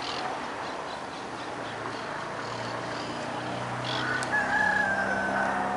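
A rooster crowing once, in a single long call of about a second and a half near the end, over steady outdoor background noise.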